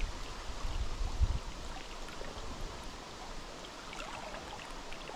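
Steady rush of a fast-flowing river current, with a few low thumps in the first second or so.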